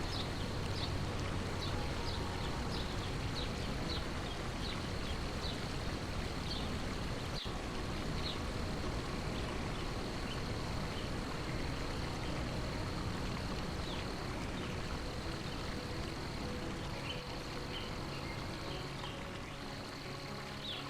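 Flowing stream water, with short high bird chirps scattered through it over a steady high-pitched hum.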